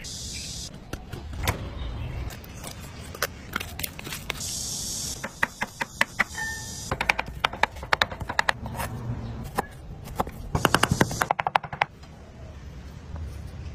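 A cleaver chopping raw seafood meat into a paste on a wooden cutting board, in quick runs of sharp chops, the fastest and loudest about seven and about eleven seconds in.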